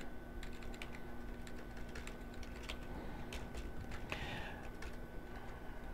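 Computer keyboard typing: scattered, faint keystroke clicks, some singly and some in short runs, over a faint steady electrical hum.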